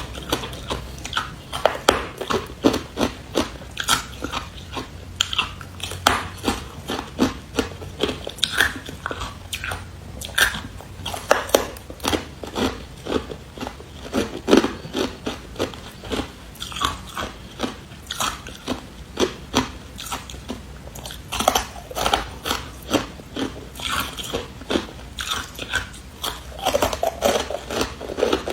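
Close-up crunching of carbonated ice being bitten and chewed, a steady run of sharp, irregular cracks and crackles, a few each second.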